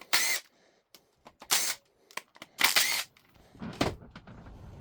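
Ratchet wrench clicking in three quick bursts as the engine's valve cover bolts are loosened, sped up to double speed, followed by a duller knock near the end.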